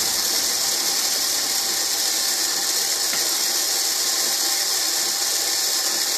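Small geared DC motor running steadily, winding a pulley to lower a model drawbridge; an even mechanical whir with a faint squeal.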